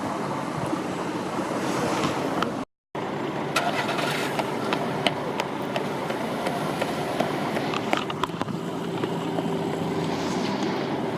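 Street ambience: steady traffic noise with scattered short clicks and knocks, broken by a brief gap of silence about three seconds in.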